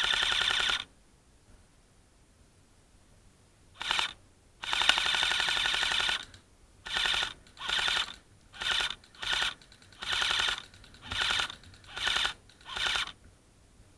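Airsoft rifle firing in full-auto bursts: about eleven rattling bursts, mostly short, with a longer one of about a second and a half near the middle.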